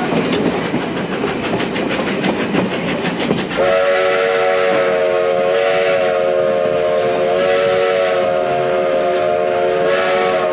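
Passenger coach rolling along the track, wheels clattering over rail joints. About three and a half seconds in, the locomotive's whistle starts and blows one long steady chord of several notes, lasting about seven seconds and stopping near the end.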